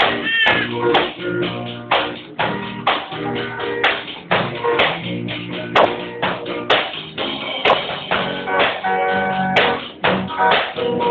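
Live band music on electric guitar with drums and a man singing into a microphone, recorded on a Nokia 3110 phone, so the sound is dull with nothing above the upper mids.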